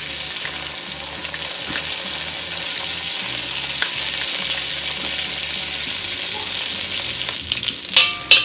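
Ghee sizzling steadily as it melts in a hot cast iron wok. Near the end a metal spatula scrapes and clicks against the pan as it is stirred.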